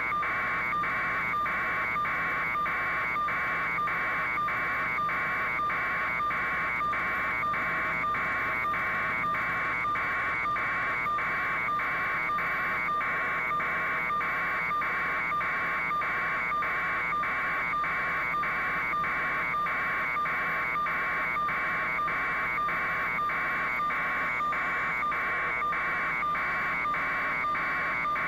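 A steady buzz pulsing evenly about twice a second, carried on the news helicopter's audio feed.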